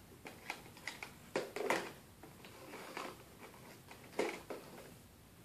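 Small plastic toy pieces and containers being picked up and set down on a plastic tray: a handful of separate light clicks and knocks, the loudest about a second and a half in.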